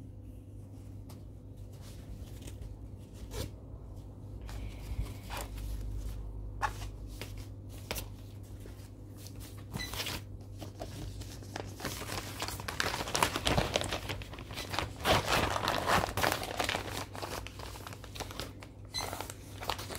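Crinkling and rustling of a preprinted cross-stitch kit's fabric being handled and turned over, with scattered light clicks. The rustling grows busier and louder in the second half.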